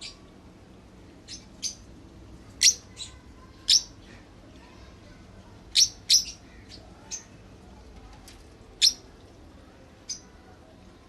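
Lovebirds giving short, sharp, high-pitched chirps at irregular intervals, about a dozen in all.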